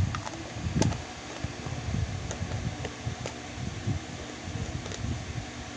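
Light clicks and knocks from handling a small plastic container on a tabletop, over a low, steady rumble.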